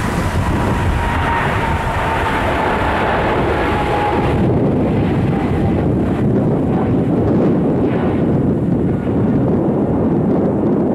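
Twin jet engines of a Boeing 777 climbing out after takeoff: a loud, steady roar with a whining tone that slowly falls in pitch over the first few seconds. About four and a half seconds in, the hiss thins out and the deep rumble carries on.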